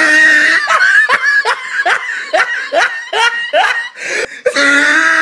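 A person laughing in a high voice: a long, unbroken run of short 'ha's, each rising in pitch, about three a second.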